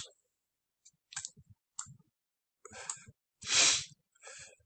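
A man breathing in audibly, a sigh-like breath about three and a half seconds in, with a few soft clicks scattered before it.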